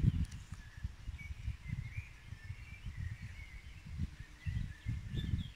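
Wind gusting on the microphone in an uneven low rumble, with small birds chirping and singing throughout.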